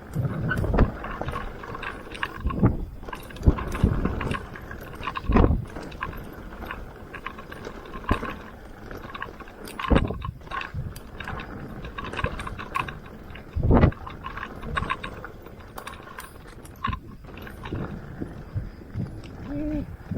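Mountain bike riding over a rough dirt trail: steady tyre and rolling noise, with the bike rattling and irregular hard thumps over bumps.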